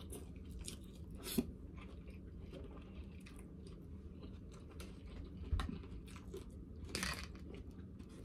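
Close-up chewing of a mouthful of shrimp, rice and salad: small wet crunches and mouth clicks, with three louder crunches spread through, over a steady low room hum.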